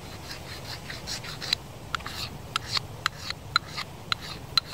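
Ferro rod (fire steel) struck repeatedly with a knife to throw sparks onto resin tinder: a run of short, sharp scrapes, coming faster and more regularly in the second half.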